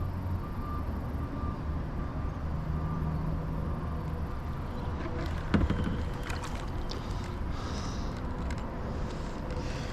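A distant engine runs with a steady low hum. A short thump with a few light clicks comes about five and a half seconds in.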